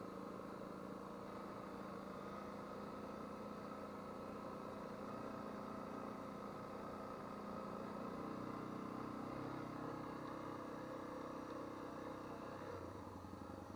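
Adventure motorcycle engine running while riding along a gravel track. The engine note climbs about eight seconds in and drops lower and quieter near the end.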